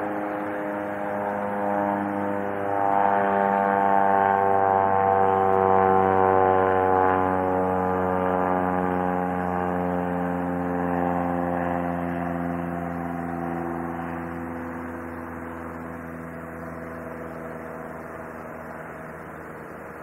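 A passing engine: a steady hum made of several tones that slowly slide down in pitch, growing loudest about five seconds in and then fading away.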